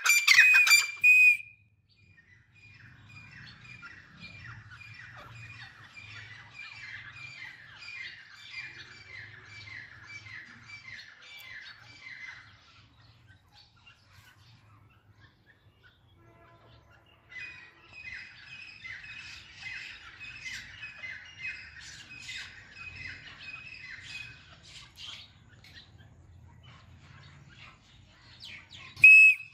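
Grey francolin calling: a loud, shrill run of repeated notes for about the first second. Then two long bouts of fainter calls at the same pitch, roughly two notes a second, with a pause of a few seconds between them. Loud calls start again right at the end.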